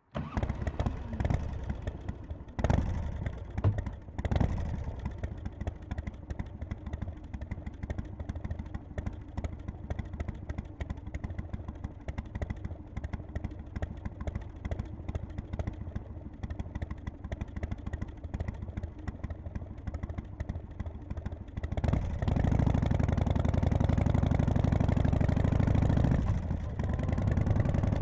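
1991 Harley-Davidson FXSTC Softail's Evolution V-twin engine running, with a few sharp louder hits in the first five seconds and then a steady pulsing run. From about 22 seconds in it runs clearly louder, with a brief dip near the end.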